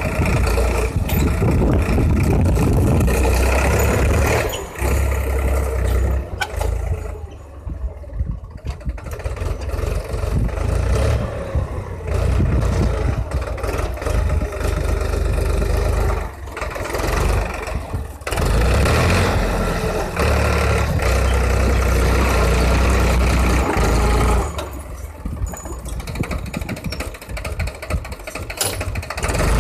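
Powertrac 439 DS Plus tractor's diesel engine running while pulling a plough. The sound rises and falls, dropping away a few times: about a quarter of the way in, just past the middle, and again near the end.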